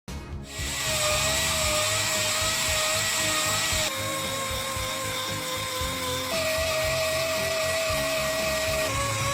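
A high-pitched power tool, such as a grinder or drill, whining steadily over a hiss. Its pitch steps abruptly down, then up, then down again, about every two and a half seconds.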